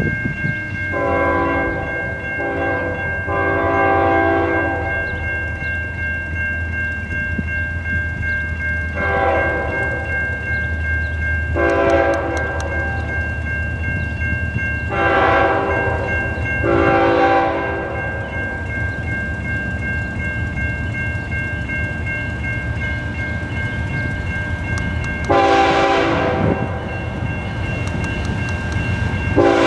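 An approaching diesel freight locomotive sounding its horn for a road crossing in a series of long and short blasts, over a steady low engine rumble. The last blasts are the loudest as the train nears. A steady high ringing from the crossing warning bell runs under the first two thirds and then stops.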